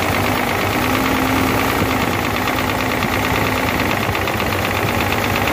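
Hino J08C inline-six diesel engine running steadily with a knock, which the mechanic traces to cylinders 1 and 2. He judges those two pistons nearly seized and not making pressure, after the engine overheated, with back compression (blow-by) present.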